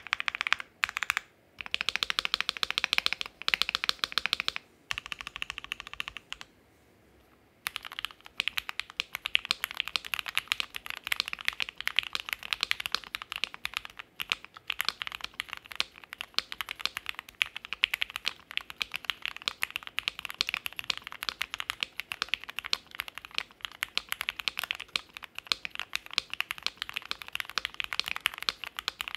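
Typing on a GMMK Pro mechanical keyboard with JWK Black linear switches, modded with PE foam, EVA plate foam and masking tape in the bottom case. A few short bursts of keystrokes and a brief pause, then fast, continuous typing from about eight seconds in.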